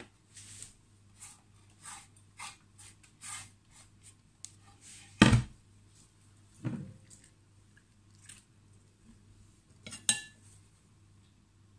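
Kitchen handling sounds around a wooden cutting board: a quick run of short scraping strokes, then the board knocked down onto the counter about five seconds in, a softer thump after it, and a couple of light clicks near the end.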